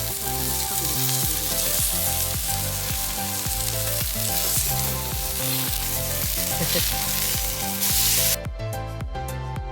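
Food sizzling as it fries over a campfire, a steady crackling hiss, under background music with a steady beat. The sizzling cuts off suddenly a little past eight seconds in, leaving the music alone.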